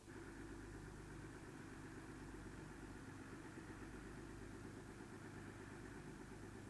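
Car engine idling steadily, cutting in abruptly at the start.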